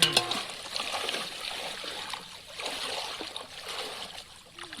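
Water splashing and trickling unevenly, with a short voice at the very start.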